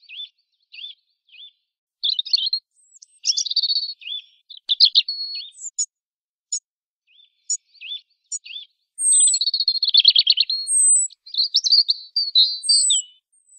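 European robin singing: short, varied phrases of high, thin warbles and twitters with brief pauses between them, the phrases coming thicker and longer in the second half.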